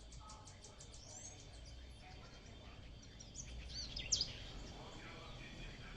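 Wild birds singing and calling: a fast high trill in the first second, then several short arching chirps, the loudest about four seconds in, over a low steady rumble.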